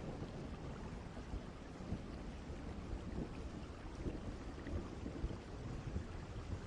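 Distant thunderstorm ambience: a continuous low rumble of far-off thunder over a faint hiss of rain.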